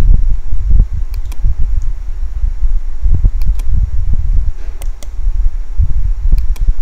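Computer mouse clicking, four quick pairs of clicks, over a loud, uneven low rumble.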